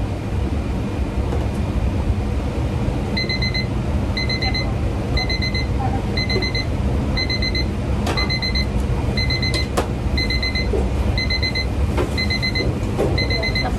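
Electronic alarm beeping in quick groups of four, about one group a second, starting about three seconds in, over a steady low kitchen hum, with a few light knocks.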